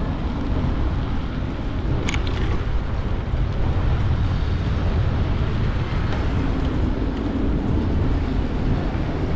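Steady low rumble of vehicle traffic, with a brief high-pitched click about two seconds in.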